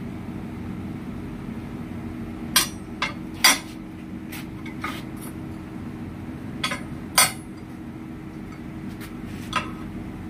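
Steel bicycle fork tubes knocking and clinking against a steel workbench plate as the fork is handled and laid down: about eight sharp metallic knocks at uneven intervals, the loudest about three and a half and seven seconds in, over a steady low hum.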